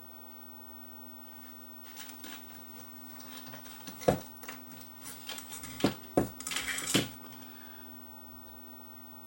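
Small metal hand tools clinking and clicking against a radio chassis and component leads while a capacitor is being fitted. There is a cluster of light taps and a few sharper clicks from about two to seven seconds in, over a faint steady hum.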